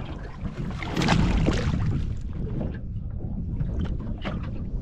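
Wind buffeting the microphone on a small boat, with water slapping at the hull and a few light knocks and clicks, the strongest about a second in.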